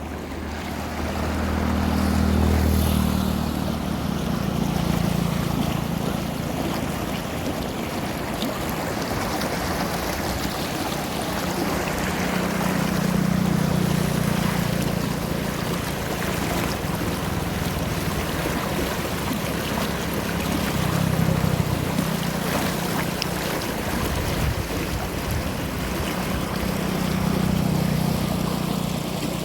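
Running water: a steady rushing wash with louder, deeper swells now and then.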